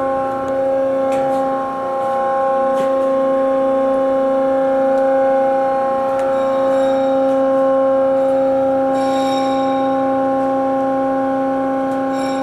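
Hyd-Mech tilt-frame vertical bandsaw running with a steady whine, with a few light clicks in the first three seconds.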